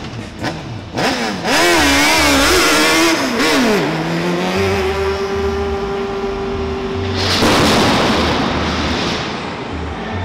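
A competition car's engine revving in wavering blips, then holding a steady high rev for about three seconds. A loud rushing hiss breaks in about seven seconds in, over a pulsing bass beat.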